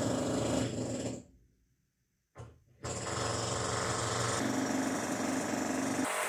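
Construction noise coming through the apartment's floor or walls: a power tool hammering rapidly and continuously. It cuts out for about a second and a half a little over a second in, then starts up again.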